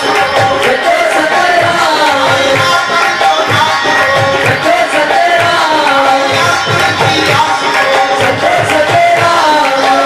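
Devotional dhuni music: tabla played in a steady rhythm under a sliding, ornamented melodic line.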